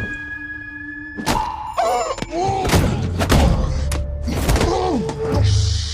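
Film trailer soundtrack: music with a run of heavy thuds and hits from a fistfight between seated passengers, starting about a second in.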